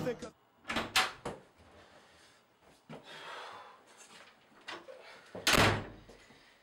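A few light knocks and clicks about a second in, then a wooden bathroom door slamming shut about five and a half seconds in, the loudest sound here.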